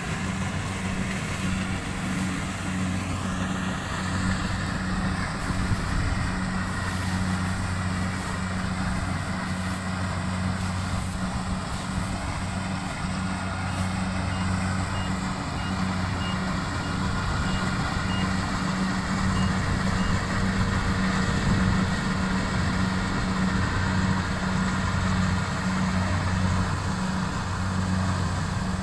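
Rice combine harvester's diesel engine running steadily under load with a constant low drone. Faint regular beeps about once a second join in through the second half.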